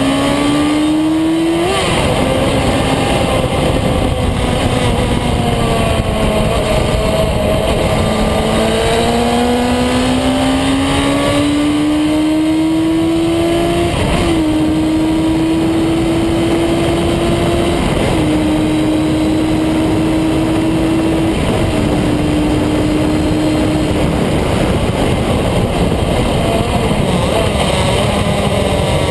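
A vehicle engine lapping a racing circuit at speed, its pitch climbing under acceleration and dropping abruptly at each gear change, over a steady rush of wind and road noise.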